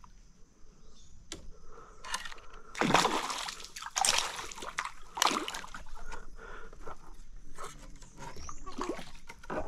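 Irregular splashing and sloshing of water, strongest about three and four seconds in, as a hooked peacock bass (tucunaré) is fought and handled at the surface beside a fishing kayak.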